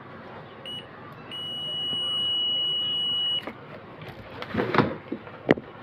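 Digital multimeter's continuity buzzer beeping with its test leads across the inverter board. A short blip comes first, then one steady high beep of about two seconds, the sign of a short, which is read as a shorted IC. A few clicks and knocks from handling come near the end.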